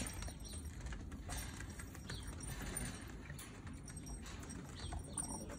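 Border Collie puppies scuffling and playing on a cloth sheet: soft rustling with scattered small clicks, rattles and paw patter.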